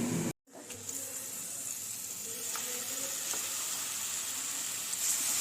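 Mutton sizzling as it fries in hot oil: a steady hiss that starts after a brief silent break near the start, with a couple of faint clicks.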